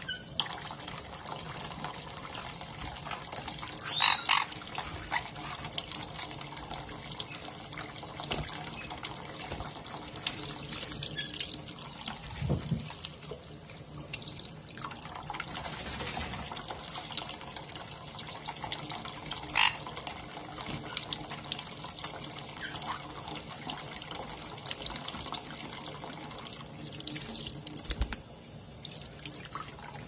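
Kitchen tap running steadily into a shallow bowl of water with sun conures bathing in it. A few short sharp sounds stand out, the loudest about four and twenty seconds in.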